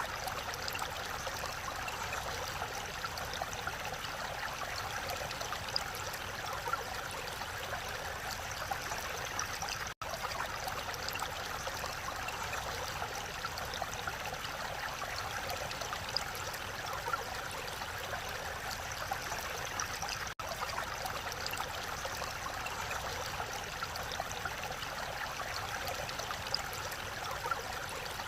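Mountain valley stream flowing steadily, a continuous even water noise that cuts out for an instant twice.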